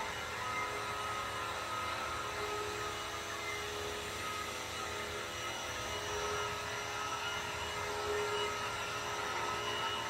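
Vacuum cleaner motor running steadily, a constant whine with a rushing air sound.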